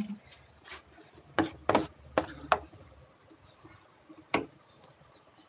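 A few sharp wooden-sounding knocks and clacks: a quick run of them between about one and a half and two and a half seconds in, then a single one near the end.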